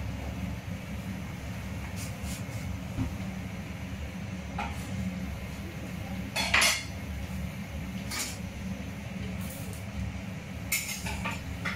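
Kitchen utensils clinking and knocking every so often, including a cleaver on a wooden chopping board, over a steady low hum. The loudest clatter comes about halfway through, and a quick run of clinks near the end.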